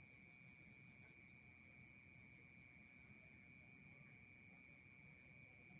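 Night insects chirping faintly: a fast, even pulsing trill over a steady high-pitched drone.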